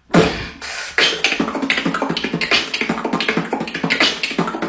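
One person beatboxing fast with Invisalign aligners in. A hard opening hit is followed, about a second in, by a rapid, even run of mouth-made kicks, snares and hi-hats, several beats a second.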